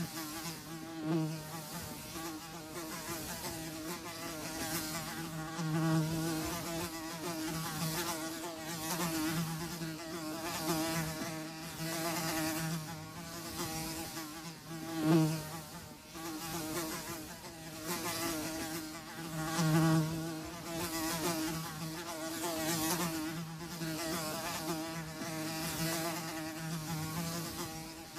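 Flies buzzing, a steady wingbeat drone that swells and fades as they pass close, with a few louder close passes.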